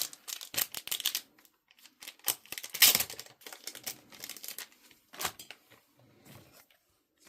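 Plastic crinkling and rustling with scattered small clicks, in irregular bursts and loudest near the middle: a pack of plastic trading card sleeves being handled and torn open.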